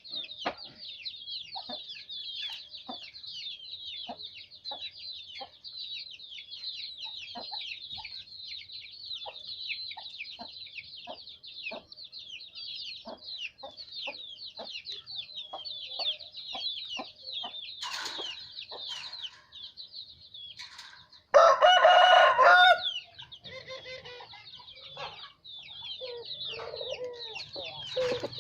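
Chickens: a dense, constant high peeping with clucks and scattered light clicks, and a rooster crowing once, loudly, for about a second and a half a little past two-thirds of the way through.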